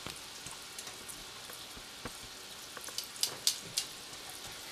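Coated morel mushrooms frying in hot oil in a nonstick skillet: a steady sizzle with scattered crackles and a few louder pops about three seconds in.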